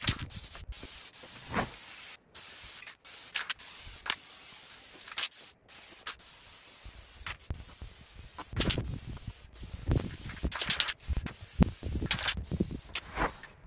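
Aerosol can of high-temperature exhaust paint spraying in a steady hiss, broken off by short gaps several times, with clicks and knocks in the second half.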